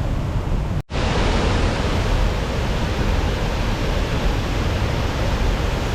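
Waterfall on a river, the water rushing steadily, broken once by a brief dropout about a second in.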